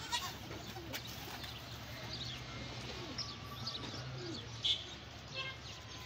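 Flock of domestic pigeons on the ground, cooing under many short, high chirps. There are two sharp wing-flap claps near the start.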